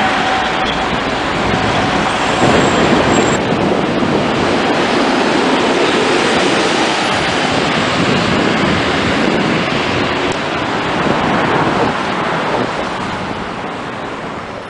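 Steady street traffic noise with double-decker sightseeing buses driving through the intersection, the engines and tyres blending into one continuous wash that eases off near the end.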